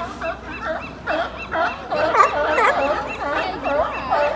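California sea lions barking, many short calls overlapping, coming thickest in a quick series of about three a second from about a second and a half in.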